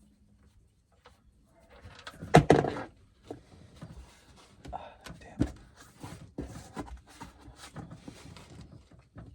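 Hand work under the RV at the oil pan's drain cap: one loud knock about two and a half seconds in, then scattered lighter knocks and clicks of parts being handled.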